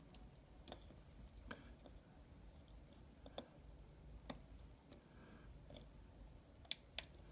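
Faint, irregular clicks of a pin pressing the small push buttons on an MGP Mollehem LED panel decoder board, the two sharpest coming close together near the end.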